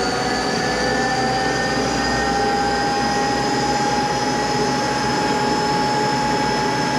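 Monarch 10EE lathe running free at high spindle speed, about 3,400 RPM: a steady machine whine whose pitch creeps slowly upward as the speed settles. It runs smoothly while the drive belts are still warming up.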